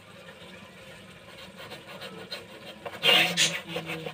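Serrated bread knife sawing back and forth through a baked sponge cake, giving soft rasping strokes, with a loud scraping rasp about three seconds in.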